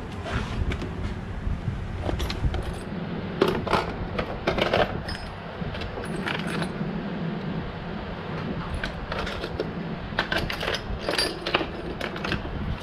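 Metal hand tools and drill bits clinking and rattling as they are handled and sorted, a series of irregular short clicks and small metallic clinks.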